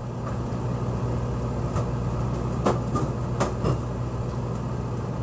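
Steady low hum in a kitchen, with a few sharp knocks and clinks, about five, between two and four seconds in, as things are handled on the counter.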